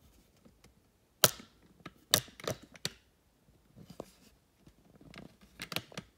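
Handling noise: a string of sharp clicks and light knocks as the camera and LEGO model are handled and moved. There is one strong click about a second in, a quick cluster of four around two to three seconds, and smaller taps near the end.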